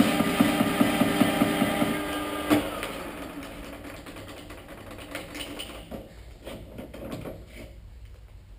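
Metal lathe running with a regular ticking about five or six times a second while the tool takes the sharp edge off the turned shaft. About two and a half seconds in there is a clunk, and the machine then winds down and fades, with a few faint clicks.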